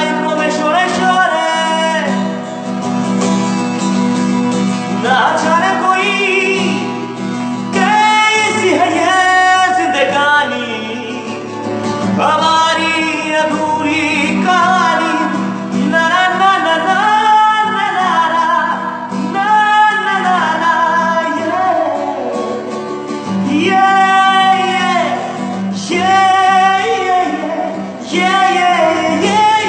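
Bengali folk-rock song: sung vocal phrases over a strummed guitar accompaniment.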